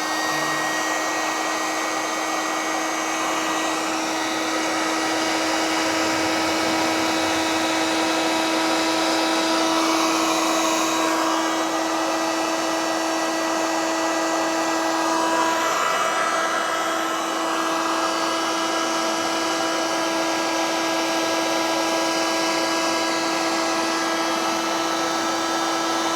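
Heat gun running, with a steady hum and a rush of air. It is heating a seized model glow engine so that the gummed-up old fuel inside softens and frees the piston.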